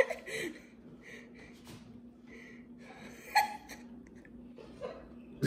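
A lull filled with faint breathing over a low steady hum, broken by one short gasp about three seconds in.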